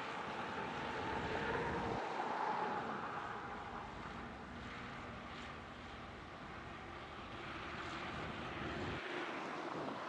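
Diesel engine of a heavy earthmoving machine running steadily, a little louder around two seconds in.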